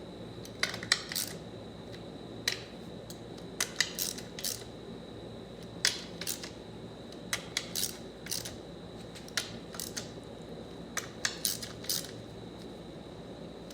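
Ratchet wrench clicking in short strokes, small clusters of sharp metallic clicks every second or so, as the bolts holding a TH400 transmission's valve body to its aluminum case are tightened.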